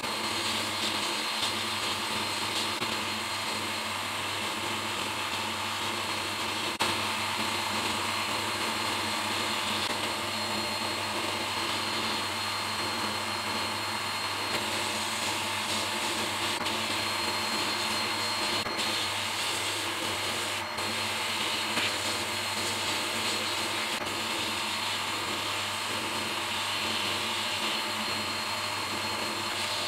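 Sandblaster's blast gun spraying abrasive media onto rusty steel inside a blast cabinet: a steady hiss of compressed air and grit, with a steady low hum underneath and a few faint clicks.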